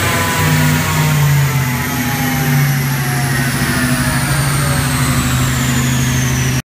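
Supercharged 4.6-litre V8 of a 2003 Mustang Cobra on a chassis dyno, winding down after a pull: a whine falls steadily in pitch over several seconds above a steady low engine note. The sound cuts off abruptly near the end.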